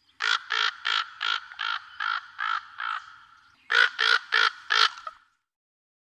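Raven calling: a quick series of eight harsh caws, about three a second, then a short pause and four more caws.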